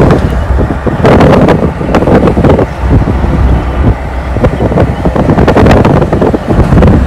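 Road and wind noise of a moving car, with wind buffeting the microphone in uneven gusts.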